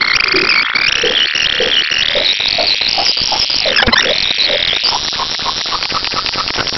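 A recorded voice sample looped in a Max/MSP patch and played back at changing speed, forward and in reverse, which smears it into a warbling electronic drone. The pitch glides upward, dives sharply about four seconds in and climbs again, over a faint pulsing of about three beats a second.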